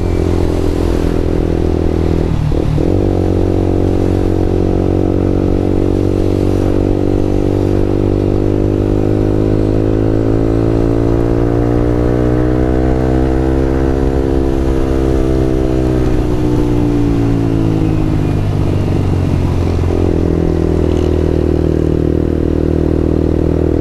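Yamaha R15 v2's single-cylinder engine running while the motorcycle is ridden, its pitch climbing gradually through the middle to a peak and falling back, with brief dips in pitch near the start and near the end.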